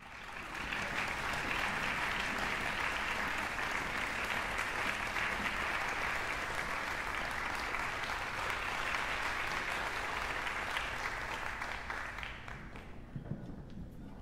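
Audience applauding steadily, then dying away about two seconds before the end.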